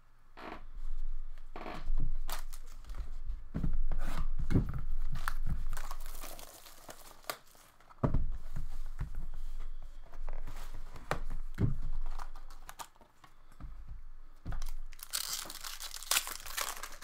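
Trading-card packaging being torn open and crumpled by hand in irregular bursts of tearing and rustling, with a denser crinkling near the end.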